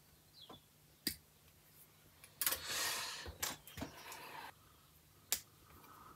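Plastic model-kit sprue being handled and shifted on the workbench: a rustling scrape in the middle and several sharp clicks, the sharpest near the end, from sprue cutters snipping plastic.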